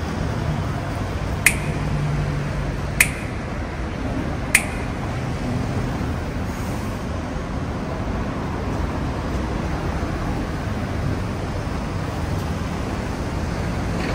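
Steady city street and traffic noise. Three sharp ticks come evenly about a second and a half apart in the first five seconds, then stop.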